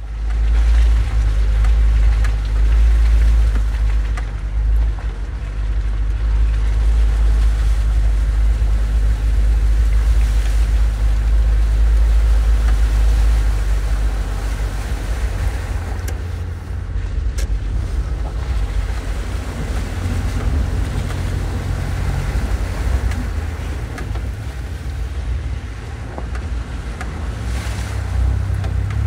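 Vehicle driving slowly along a rough, waterlogged dirt track, heard from inside the cab: a deep, steady drone from the engine and from the tyres working over ruts and puddles. There is a single sharp knock about seventeen seconds in.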